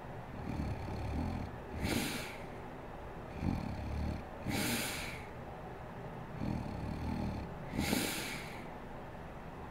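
A sleeping woman snoring, with three breath cycles about three seconds apart. Each is a low snore on the way in, followed by a short, airy breath out.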